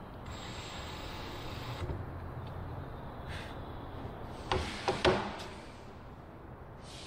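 Ryobi cordless drill running briefly as it bores into a plywood floorboard, with a steady whine for the first couple of seconds. A few sharp wooden knocks follow about four and a half to five seconds in, the loudest sounds here.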